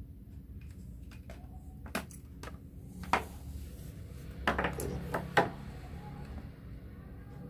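Small hard objects clinking and knocking against each other and a work surface as they are handled. There are single sharp taps about two and three seconds in, then a quick cluster of clinks a little later.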